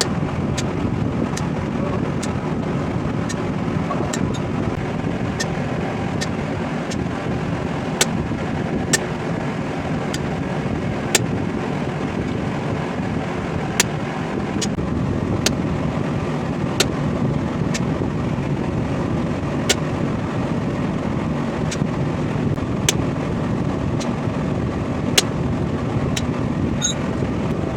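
Light, sharp hammer taps on steel, irregularly spaced roughly once every one to two seconds, over a steady roar of shop noise.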